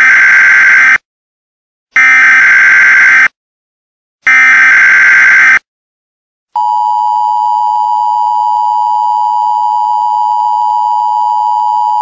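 Emergency Alert System data header: three loud bursts of screeching digital tones, each about a second long with short gaps between. Then, about six and a half seconds in, the EAS two-tone attention signal starts: a steady, harsh buzzing tone. Together they mark the start of an emergency alert broadcast.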